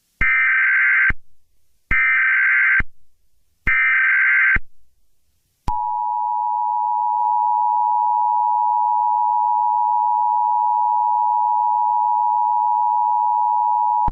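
Emergency Alert System signalling: three short bursts of the screechy SAME header data tones, each about a second long with brief gaps, followed about six seconds in by the steady two-tone attention signal, which holds until it cuts off.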